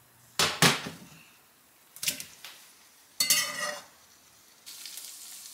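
A metal spatula clanks and scrapes against a stainless steel frying pan a few times as tilapia fillets are flipped. Near the end the fillets begin a steady sizzle in the hot butter.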